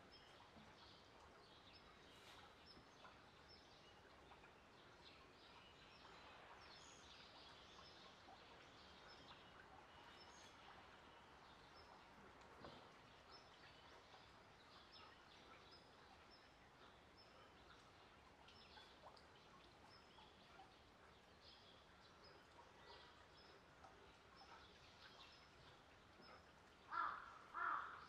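Quiet outdoor ambience with faint, scattered bird chirps; near the end, three loud bird calls in quick succession.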